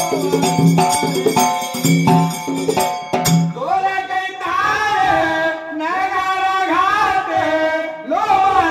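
Marathi shahiri folk music: a dhol beats a steady rhythm with jingling percussion, then cuts off sharply about three seconds in. A male shahir then sings alone in long, sliding held notes.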